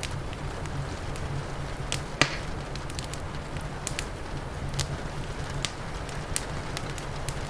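Wood fire crackling, with irregular sharp pops and snaps (the loudest about two seconds in) over a steady low rumble.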